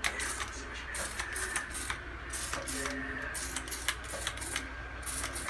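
Plastic trigger spray bottle pumped over and over onto an electric stovetop: a dozen or so short sprays, about two to three a second.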